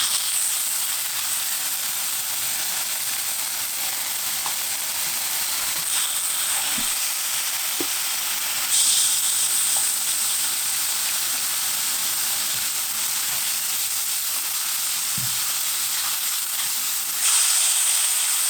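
Food sizzling as it fries, a steady hiss that steps up louder about nine seconds in and again near the end.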